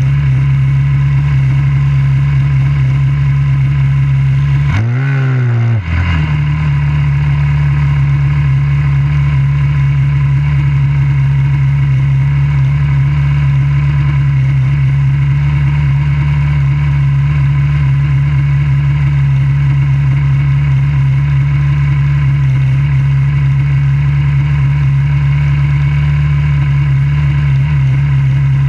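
Junior dragster's single-cylinder engine idling steadily, heard close up from the car, with one brief rev about five seconds in where the pitch rises and falls back.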